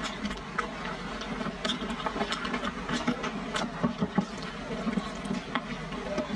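Wooden chopsticks clicking and scraping against a metal bowl as sauced potato-flour noodles are tipped out onto a wooden plate, with the wet slap of the noodles sliding out. A faint steady hum runs underneath.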